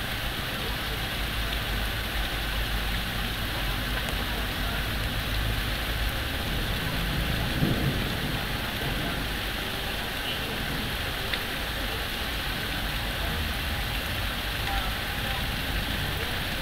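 Heavy rain falling steadily, an even hiss with no let-up. A brief low rumble rises and fades about seven seconds in.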